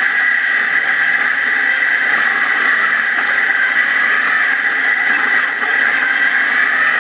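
Off-road buggy driving along a dirt track: a steady, loud drone of engine, wind and tyre noise picked up by a camera mounted beside the front wheel.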